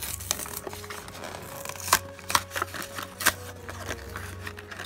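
A toy car's blister pack being torn open by hand: the cardboard backing card tears and the clear plastic blister crinkles and crackles as it is pulled free. There are irregular sharp snaps, loudest about two seconds in and again just past three seconds.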